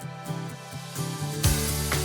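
Background music with plucked, guitar-like notes; about one and a half seconds in, drums and bass come in and it gets louder.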